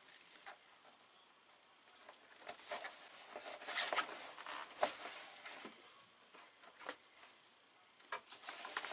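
Stiff Dacron sailcloth rustling and crinkling as it is handled and smoothed flat by hand, in irregular bursts with small sharp crackles, loudest around the middle and again near the end.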